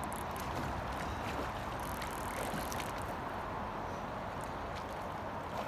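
Steady rush of a shallow river running fast over a gravel riffle, with a few faint ticks.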